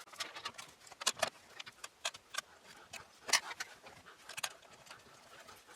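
Scattered light clicks and small rattles of hardware handled by hand as a liquid CPU cooler is fitted onto its mounting brackets.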